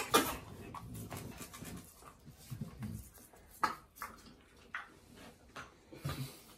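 Alaskan malamute making quiet dog noises while a toothbrush scrubs its teeth, with scattered light clicks and rubbing; two sharp knocks right at the start are the loudest sounds.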